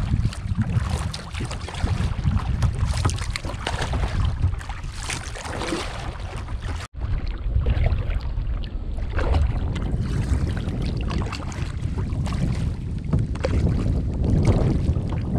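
Double-bladed kayak paddle strokes splashing in the water, with wind buffeting the microphone heavily throughout. The sound drops out for an instant about seven seconds in.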